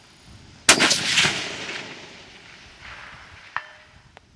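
A single rifle shot from a suppressed Armalite AR-10T in .308 Win, fired about two-thirds of a second in, with its echo rolling away over the next two seconds. Two faint short ticks follow near the end.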